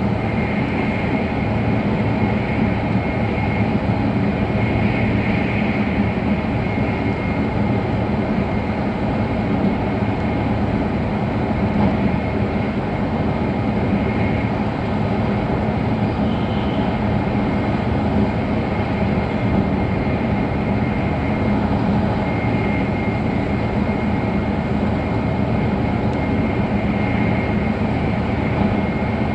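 Interior running noise of an E5-series Shinkansen car: a steady, even rumble and rush. A faint high tone runs through it.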